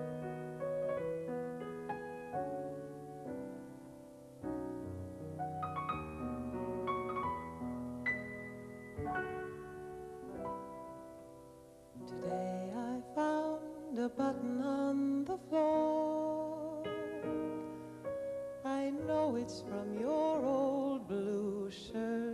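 Solo piano playing alone, then, about halfway through, a woman's voice comes in singing with vibrato over the piano accompaniment.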